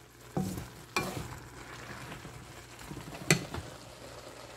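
Vegetables stir-frying in a pan with a light, steady sizzle. A wooden spatula tosses them, scraping and knocking against the pan three times.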